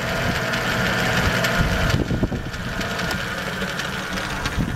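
Smithy 3-in-1 lathe-mill combo running in forward: its electric motor and gear head spinning the lathe chuck with a steady hum and gear whir. A higher whine eases off about two seconds in, and a few light clicks come through.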